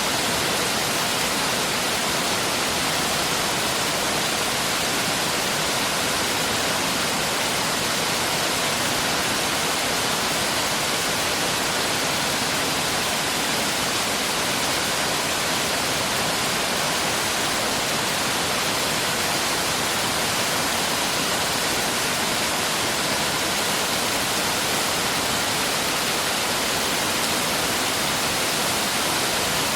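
A valley stream flowing steadily, an even, unchanging rush of water.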